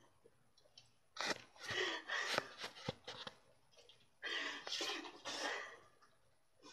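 A person coughing in short, breathy bursts, in two spells a couple of seconds apart, the throat irritated by a mouthful of dry ground cinnamon.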